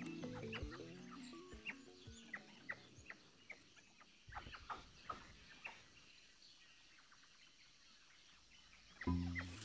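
Soft background music fading out, then a scatter of short, sharp chirping animal calls over quiet rainforest ambience, with the music swelling back in near the end.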